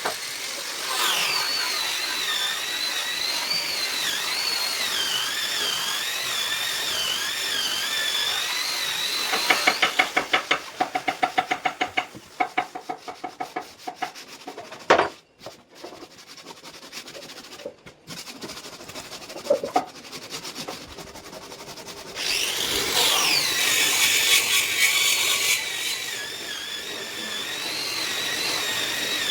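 Electric handheld power tool working wood: its motor runs with a high, wavering whine, gives way to a few seconds of rapid clicking, then falls quiet apart from a few knocks. Near the end it spins up again with a rising whine and keeps running.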